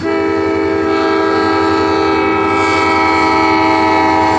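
Diesel freight locomotive's air horn blowing one long, steady chord of several notes at once, starting abruptly and held throughout, over the low rumble of the train.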